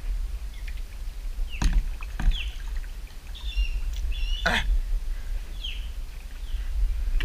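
A kayak paddled through still water: a few sharp knocks and splashes from the paddle strokes over a steady low rumble. Birds chirp briefly several times in between.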